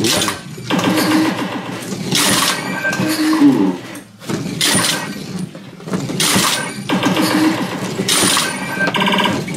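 Williams Alley Cats shuffle bowling machine playing its electronic game sounds: several short crashing bursts, its breaking-bottles effect when the puck is slid, between pitched beeps and jingles, with a fast pulsing tone near the end.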